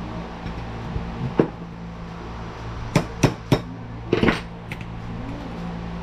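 Hand tool tapping hard parts of a car vent-window assembly: one sharp knock, then three evenly spaced knocks about a quarter second apart, then a short quick cluster of knocks, over a steady low hum.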